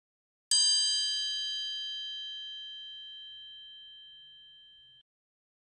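A single bell ding sound effect: one bright metallic strike that rings out with several clear overtones and fades slowly over about four and a half seconds, then cuts off abruptly. It serves as an added subscribe-reminder chime.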